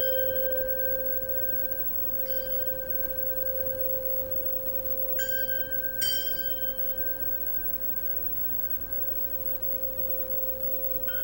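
Hanging metal rods struck one at a time, about five strikes in all, each ringing out with high overtones that fade over a second or two. The loudest strike comes about six seconds in. Underneath, one low tone rings on steadily.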